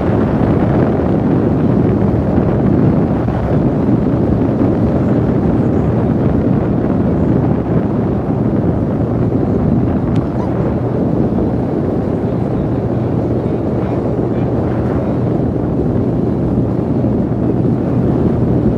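Wind buffeting the microphone on a boat that is underway, with the boat's motor running as a low, steady hum underneath.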